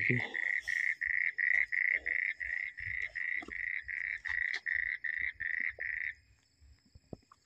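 A small animal's call repeated about three times a second at one steady, fairly high pitch, stopping suddenly about six seconds in.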